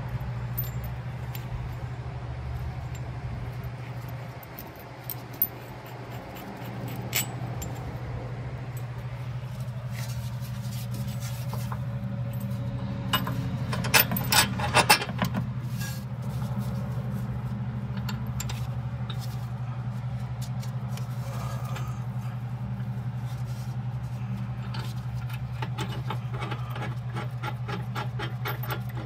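Metal clinks and scrapes from a replacement rear shock absorber being handled into its mounts, with a loud cluster of clinks about halfway through and a run of quick clicks near the end, over a steady low hum.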